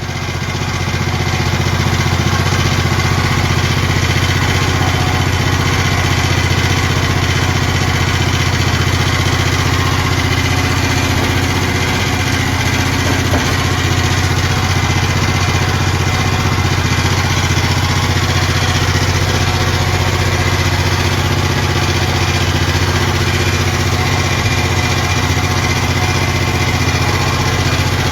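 A machine motor running steadily and loudly, with a deep hum and no change in speed.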